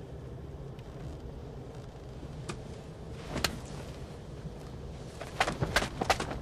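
Low steady rumble inside a stopped vintage car, with a couple of sharp clicks partway through and a quick run of knocks and clicks near the end.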